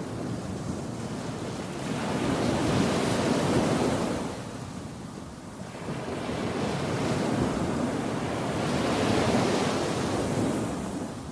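Surf washing on a shore, swelling and easing in two long surges, with wind noise on the microphone. No bird call stands out.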